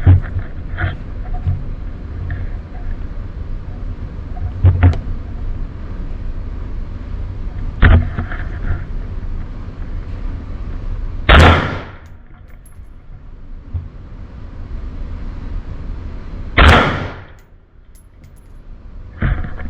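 Ruger AR-556 rifle in 5.56 NATO firing single shots, about six in all, spaced three to five seconds apart. Each is a sharp crack with a short echo; the two loudest come about halfway through and about two-thirds through.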